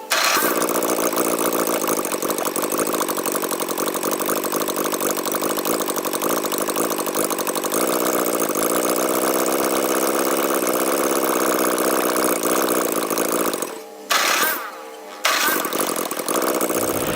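Ford 8N tractor's four-cylinder flathead engine running steadily with an even firing beat. It breaks off about 14 seconds in, gives a short burst, and then runs again.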